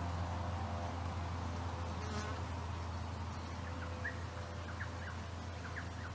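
A flying insect buzzing steadily over a low background rumble. A few faint, short bird chirps come in the second half.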